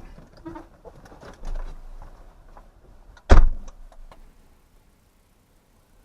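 A car door shutting with a single loud thump about three seconds in, after a few quieter knocks and rustles of someone getting out.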